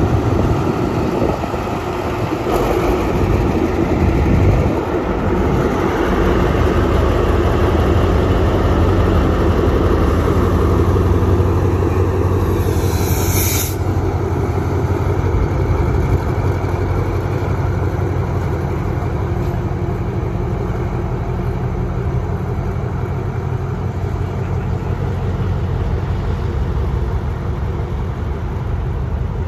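Diesel-electric locomotive engine running with a steady low hum as the locomotive rolls slowly by and then stands idling. About halfway through, a short, sharp hiss of air cuts off suddenly.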